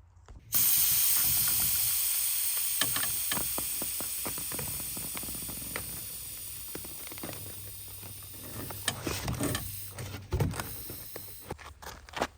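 Air hissing out of a garden cart's 26-inch all-terrain bike-type tire as it is deflated. The hiss starts suddenly about half a second in and slowly fades as the pressure drops. Clicks and knocks of handling come toward the end.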